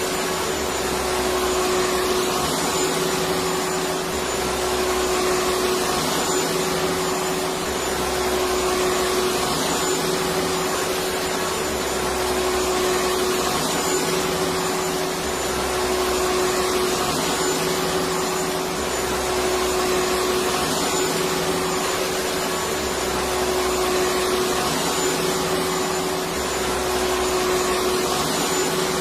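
Electric vacuum cleaner running continuously: a steady whirring drone with a constant hum, its low end pulsing slightly at an even pace.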